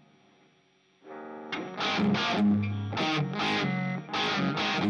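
Distorted electric guitar through overdrive pedals: a faint note dies away for about a second, then a chord swells in and, a moment later, loud rhythmic distorted chords start, with a short break near the end.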